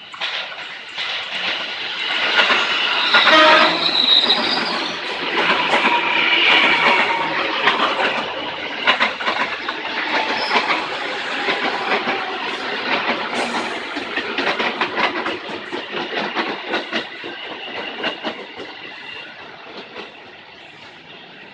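Electric commuter train passing close by, its wheels clacking over the rail joints, with a short horn blast about three seconds in. The sound fades as the last cars go by near the end.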